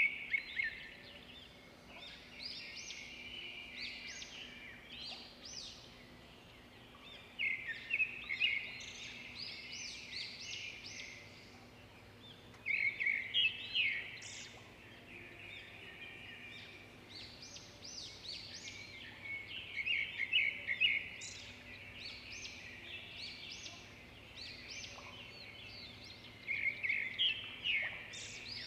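A songbird singing: a loud phrase of rapid chirps and trills about every six seconds, with softer twittering between them.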